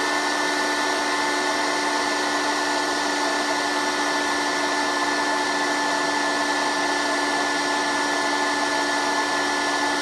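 Heat gun running on high heat: a steady rush of blown air with a steady motor whine, shrinking heat-shrink tubing onto a Deans connector. It is switched off at the very end.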